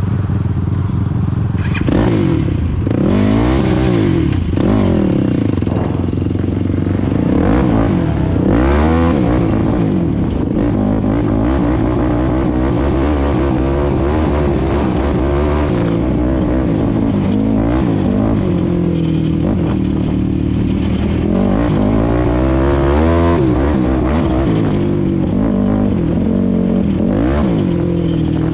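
Single-cylinder sport ATV engine under way, revving up and easing off again and again as it is ridden along a dirt trail, heard from the machine itself.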